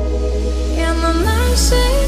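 Background music: a steady deep bass under a sustained melody that slides upward in pitch about a second in.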